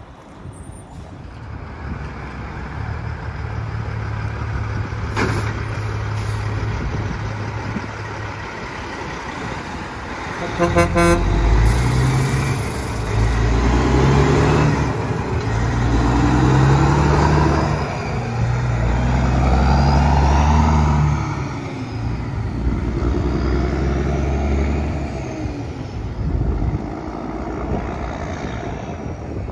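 Diesel semi-tractors hauling tank trailers accelerating past. The engines rev up and drop back in repeated steps as they shift up through the gears, with a short horn toot about eleven seconds in.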